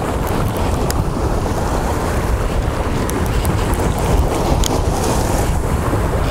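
Wind buffeting the microphone in a steady low rumble, with ocean surf washing beneath it.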